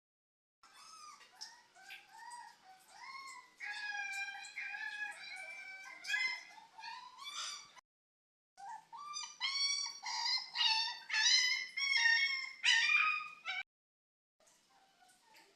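An animal's high-pitched whining and yelping calls, many short gliding cries in quick succession, in two stretches with sudden silent gaps between them.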